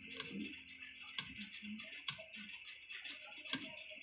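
Irregular small clicks and taps of hand tools handled against an amplifier circuit board during IC desoldering, about ten scattered ticks.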